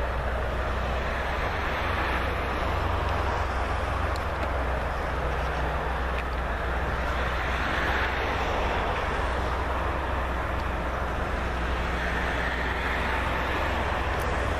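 Steady rumble of an approaching electric train on the main line, with a strong low hum and a slight swell near the end.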